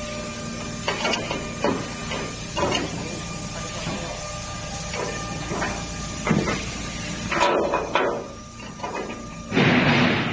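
Metal clicks and knocks of an ISO30 tool holder, collet and nut being handled and worked while changing the tool bit, over a steady machine hum. A loud short burst of hiss comes near the end.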